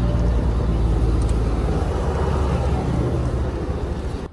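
Road traffic noise: a steady low rumble of motor vehicle engines and tyres. It cuts off suddenly at the end.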